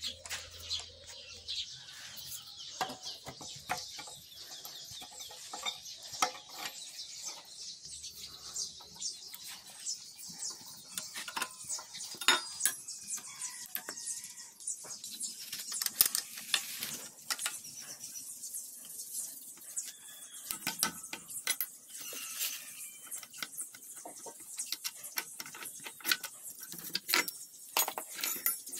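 Irregular metal clinks and knocks of hand tools and small parts being handled while a scooter's front brake hose and front wheel are worked loose.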